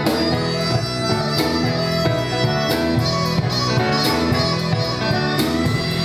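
Live ethno-jazz trio playing: grand piano with a repeating low figure, a woodwind carrying the melody, and a drum kit with cymbal crashes about every second and a half.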